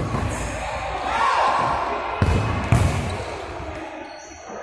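Futsal ball being kicked and struck on a hard indoor court in a large hall: a sharp thud at the start, then two more about half a second apart a little after two seconds in, with players shouting in between.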